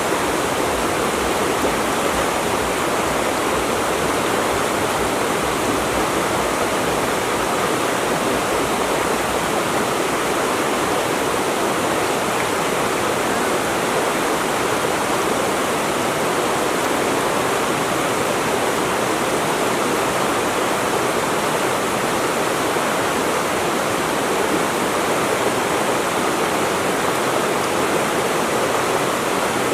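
Water rushing and splashing, as from a waterfall or fast stream: a steady, unbroken noise.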